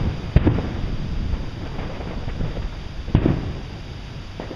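Aerial firework shells bursting: a sharp bang about half a second in and a bigger boom just after three seconds, over strong wind rumbling on the microphone.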